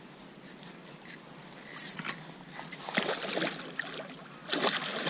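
A hooked pike thrashing at the water's surface, with splashing that gets louder in the second half and peaks twice.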